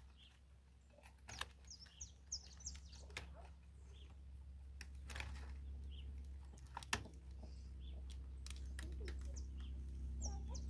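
Small birds chirping in short, high, falling notes, in clusters a few seconds apart. Scattered light clicks and knocks come from wire and wood being handled at the base of the fence.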